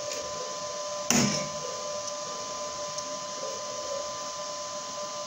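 A steady machine whine runs throughout, and a single sharp metallic knock sounds about a second in, from work on a bolt held in a steel bench vise.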